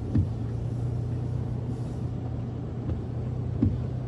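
Car cabin noise while driving on a flooded road: a steady low engine and road hum, with two short thumps, one just after the start and one near the end.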